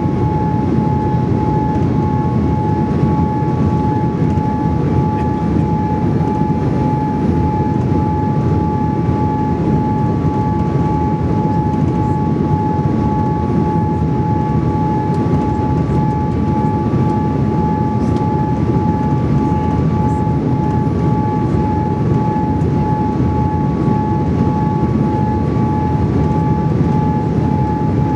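Steady cabin noise of a Boeing 787-8 Dreamliner on final approach, flaps extended: the deep, even rush of airflow and engines, with a steady high whine running through it.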